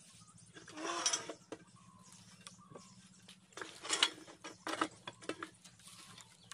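Clattering and scraping of a borewell riser pipe and its pipe clamp being handled at the wellhead. It comes in short bursts about a second in and again around four to five seconds, with a few sharp clicks.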